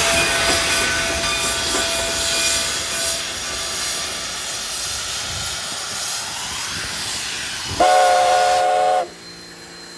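Narrow-gauge steam locomotive working, with a loud steady hiss of steam. Near the end comes a single whistle blast of about a second, several tones sounding together, after which the sound drops away suddenly.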